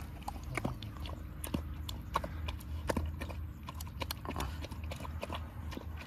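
A dog eating wet canned food: irregular wet chewing and smacking clicks, several a second.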